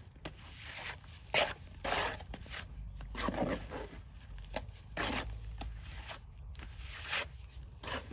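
Irregular scraping and rustling strokes, one or two a second, over a low steady hum.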